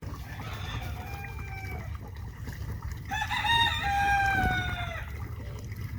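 Roosters crowing: a fainter crow near the start, then a loud crow about three seconds in that lasts about two seconds and drops in pitch at its end, over a steady low rumble.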